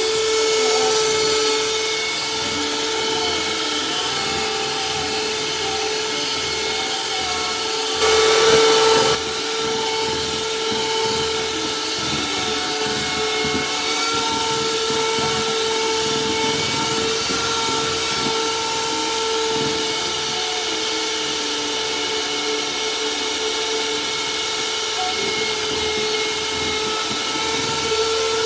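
Electric hand mixer running steadily, its beaters whipping eggs and sugar into a thick batter in a bowl. About eight seconds in there is a louder burst lasting about a second.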